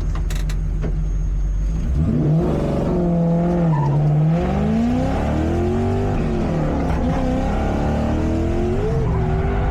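Lexus SC400 drift car's engine idling, then from about two seconds in revving, its pitch rising and falling repeatedly as the car gets under way.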